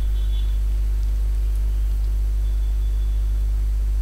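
Steady low electrical hum at an even level, with a faint high whine that comes and goes.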